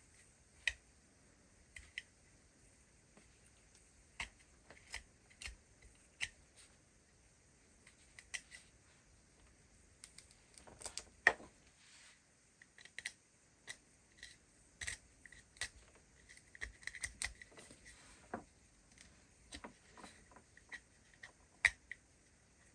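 Scattered light clicks and taps of small plastic toy parts being handled, with a short flurry about halfway through and another near three quarters of the way.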